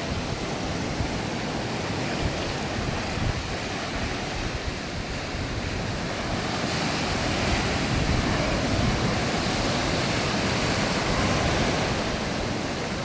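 Sea surf washing onto a sandy beach as a steady rush, with wind buffeting the microphone as a low, gusty rumble. It swells slightly about halfway through.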